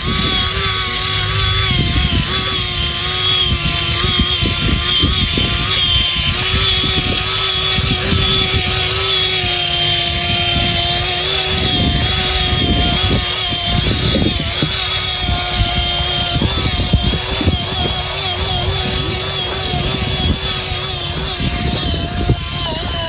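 Radio-controlled model vehicle running: a steady whine from its electric motor and gears, wavering slightly in pitch, over a rough low rumble.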